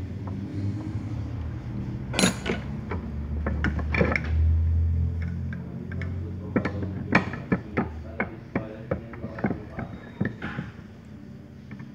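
Metal parts of a car starter motor being handled and fitted together: a sharp knock about two seconds in, then a quick run of clicks and knocks in the second half, over a steady low hum.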